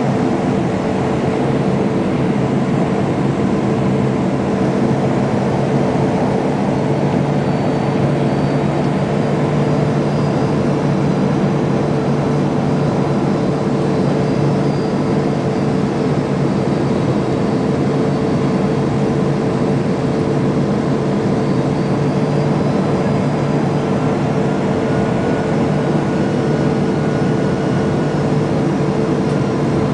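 Steady cabin noise of a Boeing 767 airliner on approach, its jet engines and the airflow heard from a window seat over the wing: a constant drone with a low hum and a faint high whine that comes and goes.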